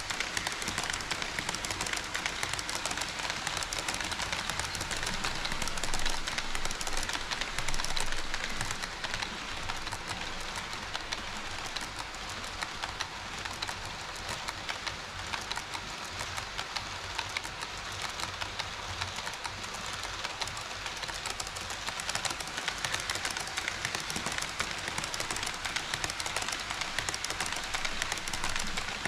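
HO scale model train running on KATO Unitrack: a steady, dense rattle of small metal wheels on rail. It grows a little fainter through the middle and louder again near the end.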